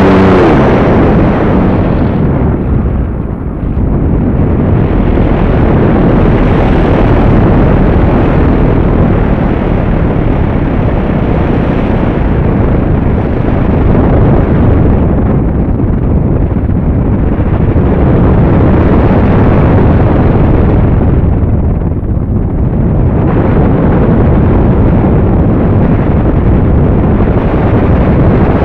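Heavy wind buffeting on the microphone of a camera riding on an AcroMaster RC plane in flight, swelling and easing every few seconds. A falling motor tone dies away in the first moment, as the electric motor throttles back.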